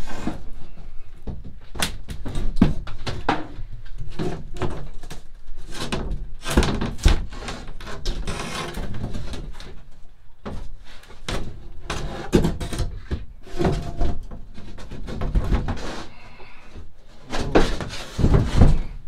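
A large sheet of thin wood paneling being worked into place by hand in a small camper interior, with irregular knocks, thunks and scraping as it bumps and rubs against the walls and ceiling in a tight fit.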